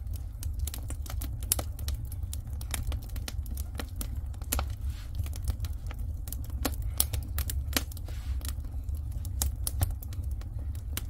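Firewood crackling in an agungi, a Korean wood-fired floor-heating furnace: irregular sharp pops and snaps over a steady low rumble.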